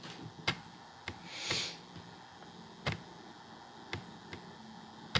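Quiet room with several faint clicks and taps from a phone being handled, the clearest about three seconds in, and a short soft hiss about one and a half seconds in.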